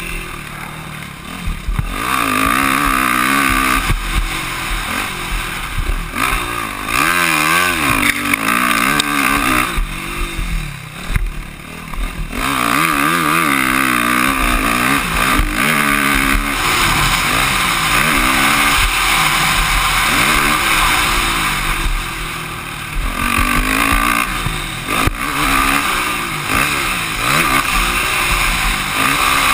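Motocross dirt bike engine revving hard, its pitch rising and falling over and over as the rider works the throttle and gears, with short drops where the throttle is rolled off about a second in and again around ten seconds in.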